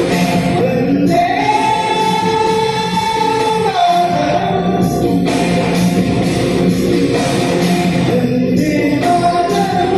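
A vocal group singing a song together in harmony through microphones, with one long held note from about one to four seconds in.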